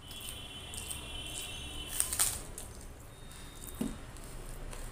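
Fingers mixing and scooping rice and curry on a steel plate: soft squishing with scattered sharp clicks, the loudest about two seconds in, and a dull knock a little before the end.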